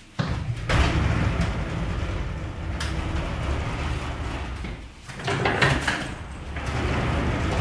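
Sliding wardrobe door rumbling along its track as it is pushed open, starting suddenly just after the start, followed by rummaging through clothes and bags on the closet shelves, with another loud stretch about five and a half seconds in.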